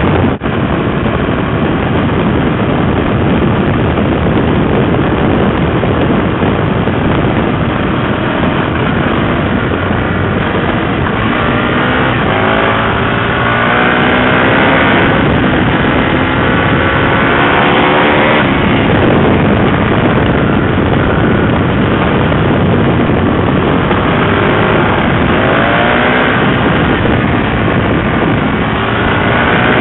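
Aprilia RSV 1000R's 60-degree V-twin engine running hard through a LeoVince aftermarket exhaust, heard loud right beside the silencer over a dense rush of noise. The engine note climbs several times as the bike accelerates, in the middle and again near the end.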